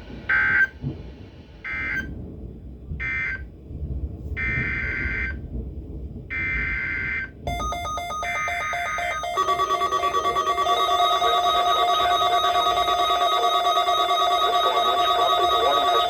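NOAA Weather Radio SAME digital data bursts: three short buzzing blasts and then three longer ones, carrying the coded end-of-message and the header for the next alert. These are followed, from about nine seconds in, by a steady electronic alert tone.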